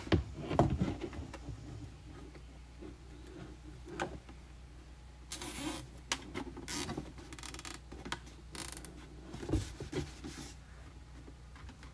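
Hands handling a plastic laundry jug with wooden stir sticks: scattered knocks and plastic rubbing, then a zip tie drawn through its hole and ratcheted tight in a short run of fine clicks about seven seconds in.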